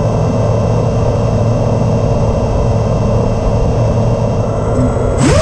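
FPV quadcopter's four Cobra 2205 2300kv brushless motors spinning tri-blade 5-inch props at idle while the drone sits armed on the ground: a steady whine over a low hum. Near the end the pitch rises sharply as the throttle comes up for takeoff.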